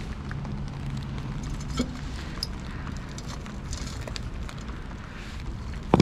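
Hand handling of the steel parts of a cut-open hermetic compressor: a few small clicks and a light knock, then one sharp, loud knock near the end, over a steady low background noise.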